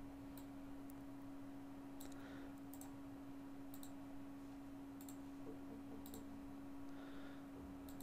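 Faint computer mouse clicks, about seven spaced roughly a second apart, some in quick pairs, as points are picked on screen, over a steady low hum.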